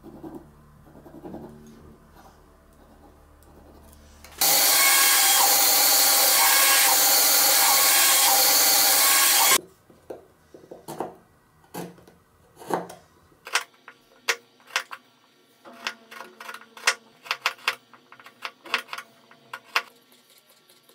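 A small power tool runs steadily for about five seconds. After it, a carving knife cuts and shaves a small wooden block in a quick, uneven run of sharp slicing cracks and scrapes.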